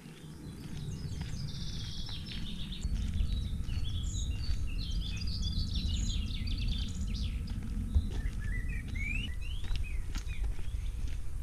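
Several songbirds singing in woodland, with short chirps and trills and a few rising whistles near the end, over a steady low rumble on the microphone. One sharp click about eight seconds in.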